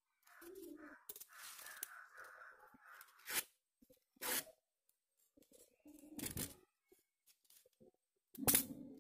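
Paper flower and its paper leaves rustling and crinkling as they are handled, a run of soft rustling followed by several short, sharp rustles, the loudest near the end.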